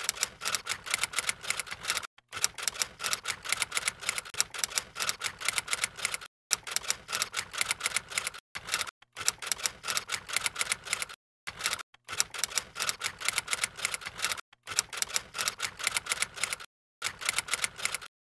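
Typewriter keys clacking in quick runs of about ten strokes a second, broken by short pauses; a typing sound effect.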